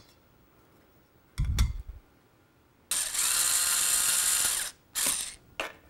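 A screwdriver fastening the cover plate back onto the video head drum of an open-reel video recorder. There is a knock about a second and a half in, then a steady whirr lasting nearly two seconds, then a couple of short clicks near the end.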